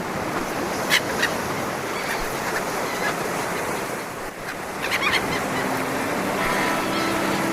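Sea surf washing steadily, with a few short bird calls about a second in and again around five seconds. Music fades back in during the second half.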